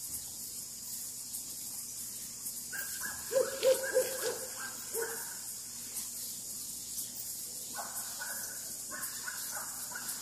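Night animals calling at dusk in the countryside: a steady high-pitched chorus throughout. About three seconds in come five or six quick, low, hooting calls, the loudest sounds here, and a higher run of pulsed calls follows near the end.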